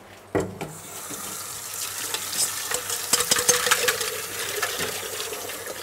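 Tap water running into a stainless steel mixing bowl as it is rinsed out, with a metal clank of the bowl about a third of a second in and small knocks and splashes as the water hits the steel.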